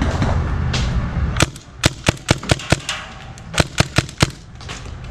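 Paintball marker firing: a quick string of about six shots, a short pause, then four more. A loud low rumble fills the first second and a half before the shots begin.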